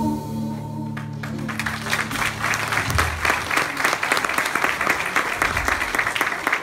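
The song's final held note on voice and nylon-string guitar ends about a second in. Audience applause starts right after, builds and keeps going.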